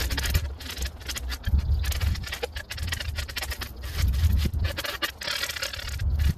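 A flat shovel blade scraping and shaving hard-packed snow in quick, irregular strokes, over a steady low rumble.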